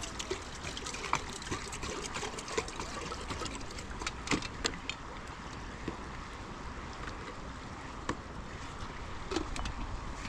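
Fast river water rushing steadily, with scattered sharp clicks over it, the strongest a little over four seconds in.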